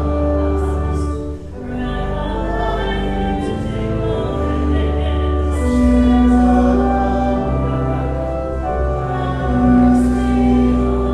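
Church organ playing slow, sustained chords over a held bass, with singing.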